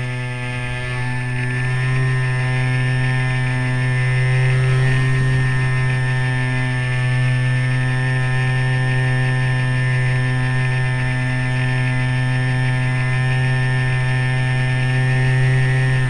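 Remote-control plane's motor and propeller heard from a camera mounted on the plane, running steadily at constant throttle as a loud, even-pitched drone with a rushing hiss over it.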